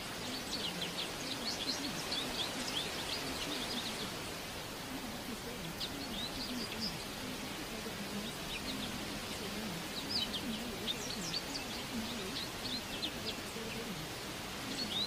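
Birds chirping in scattered clusters of quick high notes over a steady outdoor hiss, with a faint low murmur underneath.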